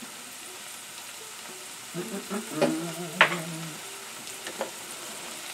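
Diced peppers, onion, pear and garlic sizzling in butter in a skillet: a steady frying hiss. Around the middle there is a brief low hum-like tone and a few light clicks.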